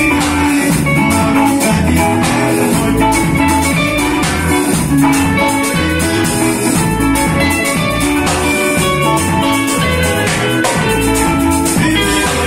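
A band playing an instrumental passage with guitar melody over bass and drums, with a steady dance beat.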